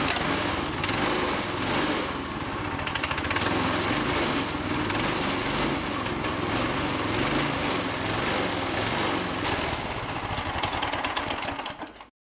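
Predator 212 single-cylinder four-stroke engine, governor removed, running on charcoal lighter fluid mixed with two-stroke oil, its speed rising and falling a little as the carburetor is adjusted. The sound stops abruptly near the end.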